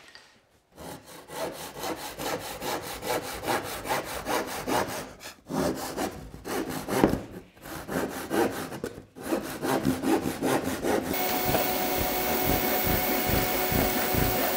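Japanese pull saw cutting through an MDF sheet in quick, even strokes, about four a second, with two short pauses. About 11 seconds in, the sawing stops and a shop vacuum starts, running with a steady whirring hiss.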